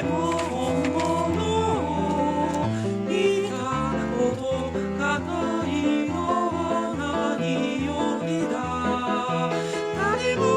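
Music: several overlapping sung parts, multitracked by one singer, over a rhythmic pattern of short low notes.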